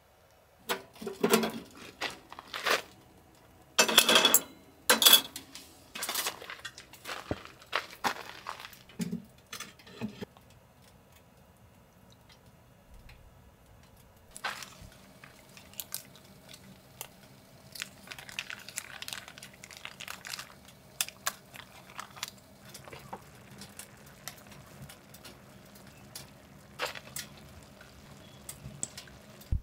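Irregular clinks and knocks of objects being handled, with the loudest strokes in the first five seconds and lighter scattered clicks after that.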